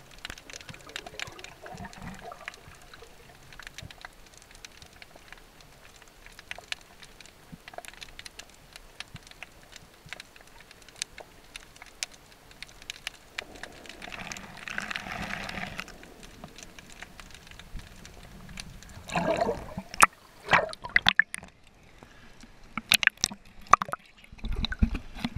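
Liquid dripping and splashing: scattered small drips and clicks, a brief rushing swell about halfway through, then louder, sharper splashes in the last few seconds and a low watery rumble at the very end.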